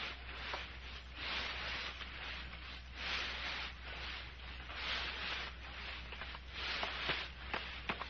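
Footsteps sound effect: an even series of swishing steps, roughly one a second, over a steady low hum.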